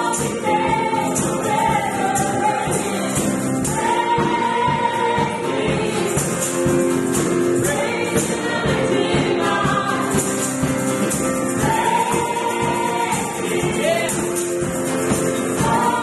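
Gospel worship song: several voices singing together over held instrumental chords, with a tambourine shaken in a steady rhythm.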